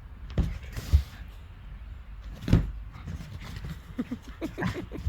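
A dog playing in snow: several dull thumps and scuffles, then a quick run of short sounds about four seconds in.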